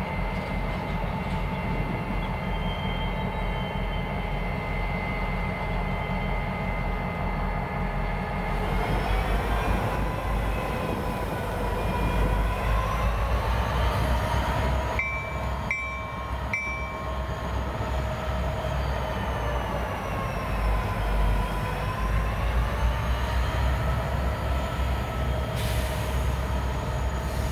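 A pair of EMD SD50-2 diesel-electric locomotives running while moving slowly, with a steady low engine rumble and a whine that rises about a third of the way in, then wavers up and down. Three brief high squeaks come near the middle.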